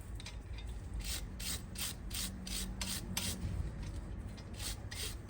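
Brake caliper guide pin being scrubbed clean of built-up dust: repeated rubbing strokes, about three a second.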